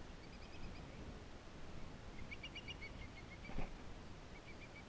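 A bird calling in three quick runs of short, evenly spaced chirps over a low rumble, with a single sharp knock about three and a half seconds in.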